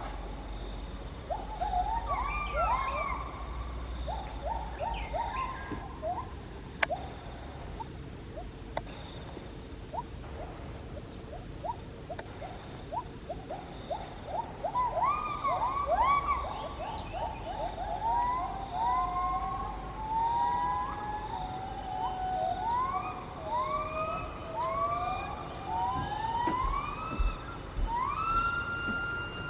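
Wild apes calling: runs of short, quick whooping notes, then from about halfway on longer rising whoops that climb higher in pitch. A steady, pulsing high insect drone goes on under the calls.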